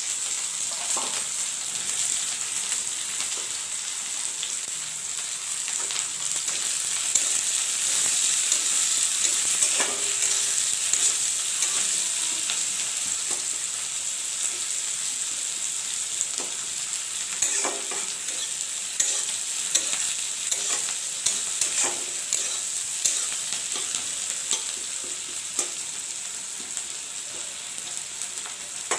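Sliced onions sizzling as they fry in hot oil in a pan, being stirred, with frequent clicks and scrapes of the stirring utensil against the pan.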